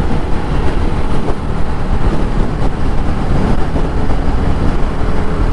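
Motorcycle underway: its engine running steadily under a heavy, continuous wind rumble on the microphone.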